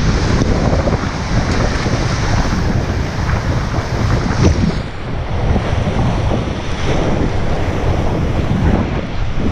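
Big-volume whitewater rapid at very high flood flow, a loud continuous rushing roar of crashing waves around a kayak. Brief splashes of water hit the camera's microphone.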